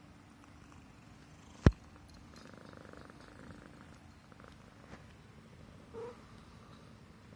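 Himalayan Persian cat purring steadily, with one sharp click about a second and a half in.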